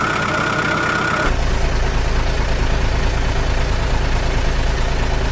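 A vehicle engine running steadily. About a second in, a high steady whine drops out and a deeper, heavier rumble takes over.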